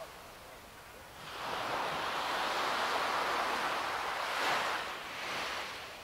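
Ocean surf: a wave swells up about a second in, washes loudly for a few seconds, then draws back and fades near the end.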